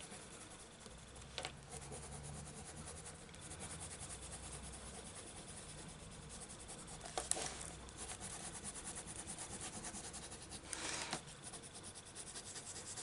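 A colouring pencil shading over a paper book page: a faint, scratchy rubbing of quick back-and-forth strokes, with a few brief louder strokes.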